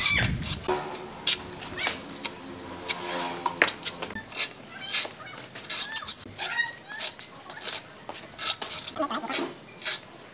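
Small steel trowel scraping and clinking against the cement of a large pot as its surface is shaped and trimmed, in irregular sharp clicks and short scrapes.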